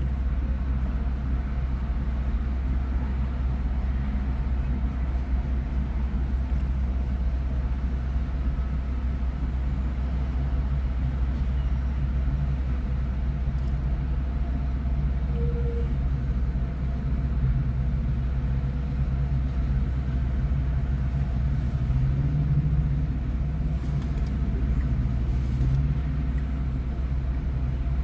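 Steady low rumble of road traffic, with a running engine's hum.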